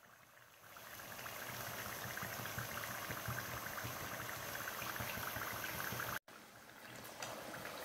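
Chakli spirals of rice and urad dal dough sizzling as they deep-fry in hot oil, a steady bubbling crackle. The sound cuts out for an instant about six seconds in and comes back quieter.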